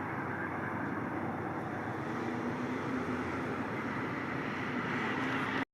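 Diesel passenger train running past on the tracks: a steady rumble of wheels and rail noise that cuts off abruptly near the end.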